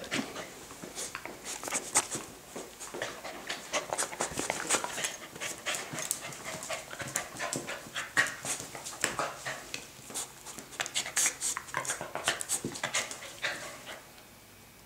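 Small long-haired dog panting in quick short breaths while it plays, falling quiet about a second before the end.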